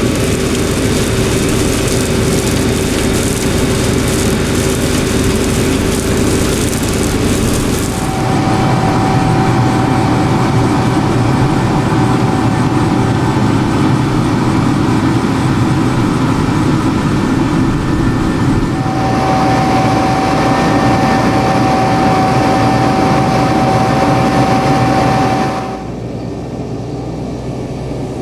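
Dewulf RA4060 self-propelled potato harvester running: steady engine and machinery noise with a thin, high steady whine at times. The sound changes abruptly about eight seconds in and again near the end, where it gets a little quieter.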